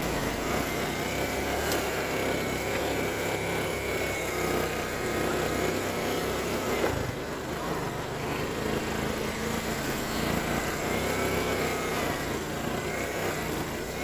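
ATV engine running under way along a dirt trail, a steady drone with a thin high whine that wavers up and down as the throttle changes. There is a brief knock about seven seconds in.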